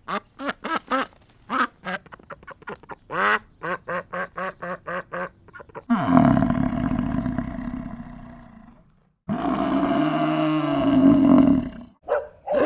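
Ducks quacking in a rapid series of short calls for about six seconds, followed by two long, loud low calls from a buffalo, the first trailing off and falling.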